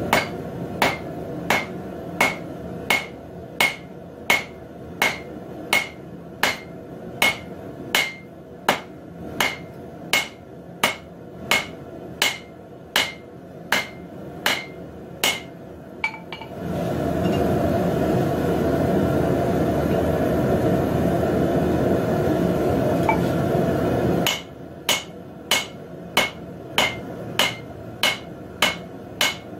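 Blacksmith's hammer striking steel stock on an anvil, about two blows a second, each with a short metallic ring, as the bar is flattened into a leaf shape. For about eight seconds past the middle the hammering stops and a steady, louder rushing noise takes over, then the hammer blows resume near the end.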